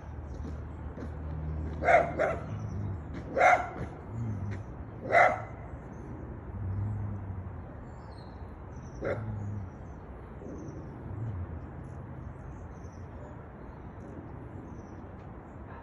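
A dog barking: three short, sharp barks about a second and a half apart, then one more about four seconds later.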